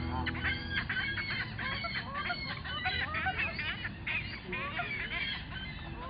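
Rapid, continuous run of short, high waterfowl-style clucks and honks, many calls a second, each bending in pitch: competition waterfowl calling imitating feeding geese or ducks.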